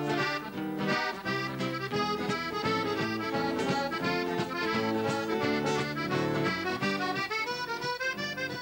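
Instrumental theme music: a melody over chords that change in a steady, even rhythm.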